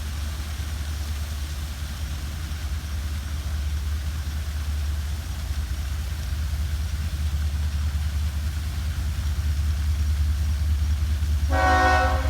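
Diesel freight train approaching slowly with a steady low rumble that grows gradually louder, then its locomotive's multi-tone air horn starts sounding near the end.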